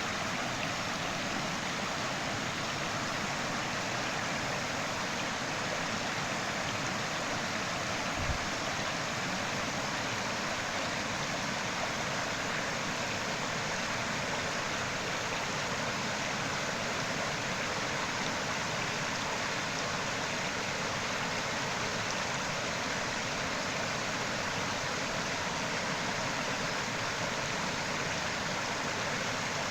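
Creek water flowing steadily over rocks, an even rushing. A brief low thump about eight seconds in.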